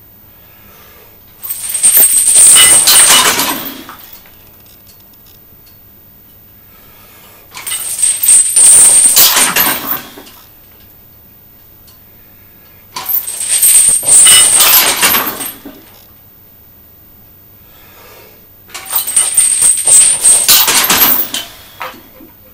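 Steel chains hanging from a loaded barbell rattling and clinking four times, each for about two seconds, as the bar is worked in grip training.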